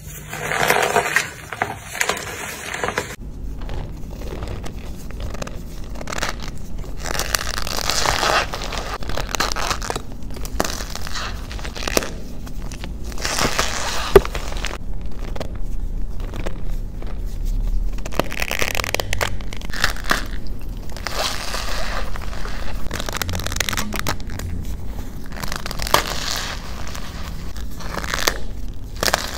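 Hands squeezing and crumbling soft gym chalk blocks packed in cornstarch: a run of uneven crunching and squeaky crushing of the powder and chalk, with one sharp crack about halfway through.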